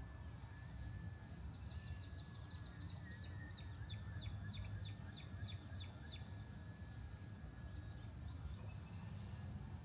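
Wild bird calling high and sharp: a quick trill of chirps, then a run of about ten short, evenly spaced notes at roughly four a second, over a steady low outdoor rumble.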